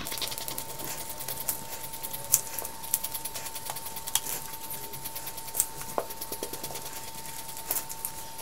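Squeeze-bottle duster of gold edible colour dust pumped again and again, giving short puffs and clicks at an uneven pace, with a faint steady high tone underneath.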